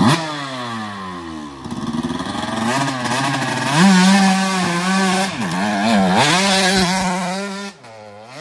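Dirt bike engine revving hard on a steep hill climb: a sharp rev at the start that falls away, then revs climbing and held high with a couple of brief dips, before dropping off and stopping near the end.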